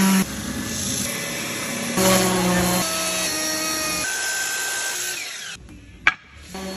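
Woodworking power tools running: a DeWalt random orbital sander working pine, then a Ryobi benchtop router. The noise drops away about five and a half seconds in, with one sharp click just after.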